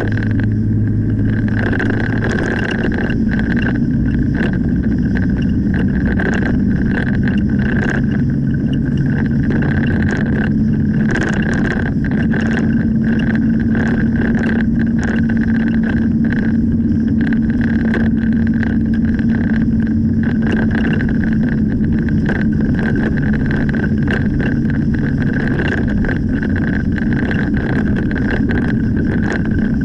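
Car engine and tyre noise heard from inside the cabin while driving. The engine note shifts about two seconds in, and there is a steady high whine with frequent small ticks and rattles.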